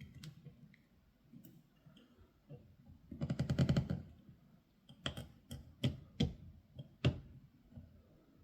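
Small metal clicks from a lock pick tensioner being worked out of a Kwikset Smartkey Gen 3 lock while the picked core is held turned: a quick rattling run of clicks about three seconds in, then a handful of sharp separate clicks.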